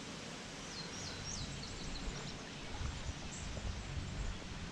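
Steady rush of stream water, with a small bird singing a quick run of short descending chirps about a second in and a single call later on.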